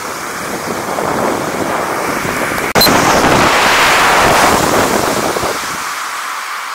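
Wind buffeting the camera microphone while snowkiting at speed, a rough rushing noise mixed with the hiss of sliding over snow. It jumps suddenly louder just before three seconds in and eases off after about five and a half seconds.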